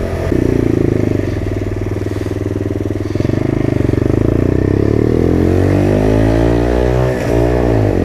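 Motrac M5 minibike's 50cc engine running under way, its pitch climbing steadily, dipping briefly about seven seconds in and then picking up again.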